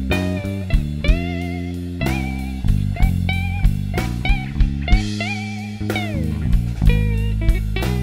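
Live blues band playing an instrumental break: a hollow-body electric guitar through a Fender amp takes a slide solo, its notes gliding up and down, over steady bass and regular drum hits.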